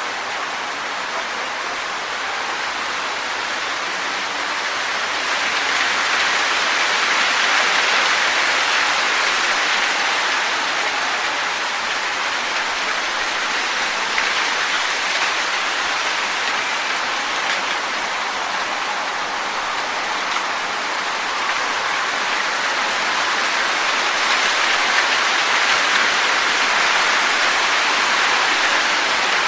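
Wind blowing through trees, leaves rustling in a steady hiss. It swells a few seconds in and again near the end.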